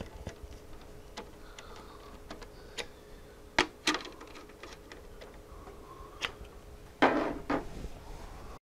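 Scattered small metallic clicks and ticks of a screwdriver working screws into a circuit board in an oscilloscope's metal chassis, with a louder double knock about seven seconds in. The sound cuts off abruptly near the end.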